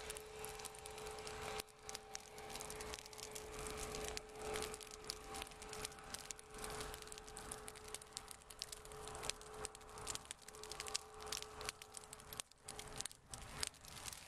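Dry ditch grass and weeds burning, with dense, irregular crackling and popping over a steady hum.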